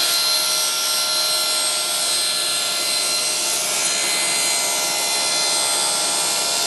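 Table saw running with a steady motor whine while its blade trims the end off a plywood board fed through the cut.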